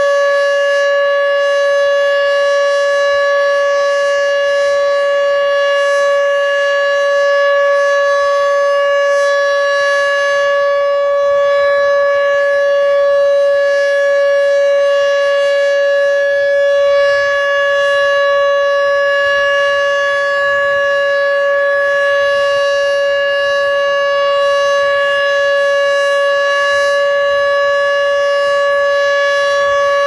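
Dual-rotor Fedelcode Type Mach 5 outdoor warning siren sounding a steady alert tone, both choppers working. It runs slow and wavers a little in pitch.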